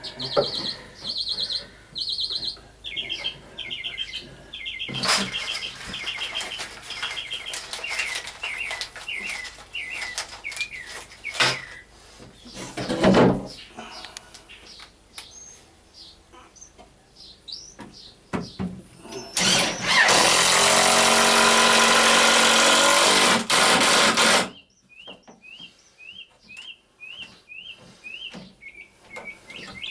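A cordless drill runs for about five seconds, driving a screw to hold a plywood piece in place. It is the loudest sound and stops abruptly. Before it come scattered knocks and clicks of the wood being handled, and small birds chirp in runs of short repeated notes near the start and again near the end.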